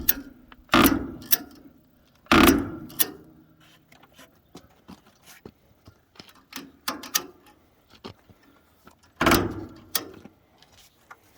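Ratchet strap being handled: three loud metal knocks, two in the first few seconds and one near the end, with lighter clicks and rattles of the ratchet and hook between them.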